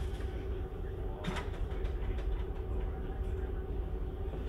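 Steady low rumble with a constant hum, as of a large ferry's engines and storm wind heard on board, with a few short clicks, one about a second in.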